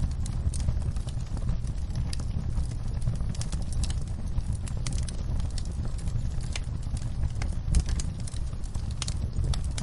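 Wood fire crackling in a fireplace: irregular small pops and snaps over a steady low rumble of the flames, with one louder pop near the end.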